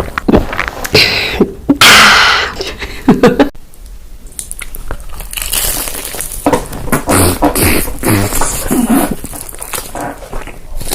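Close-miked eating sounds: food crunching and being chewed, with many short clicks, and a loud noisy burst a little before two seconds in.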